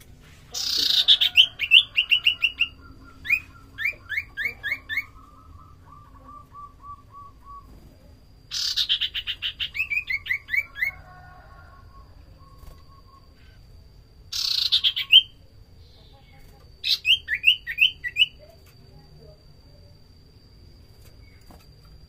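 Common iora (sirtu, cipoh) singing in four bouts. Each bout opens with a fast chattering rattle that sweeps downward and runs into a string of short, sharp, rising notes, sometimes followed by a lower run of repeated whistled notes.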